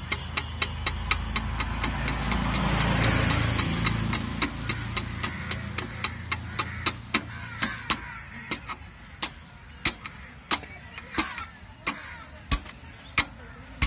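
Quick, light, even hammer taps on the steering stem, seating the upper steering-head bearing. About four taps a second at first, slowing to two or three a second in the second half.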